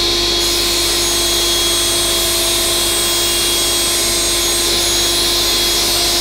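Table saw running at full speed and ripping a board of 18 mm plywood: a loud, steady noise with a held tone, unchanging as the board is fed through the blade.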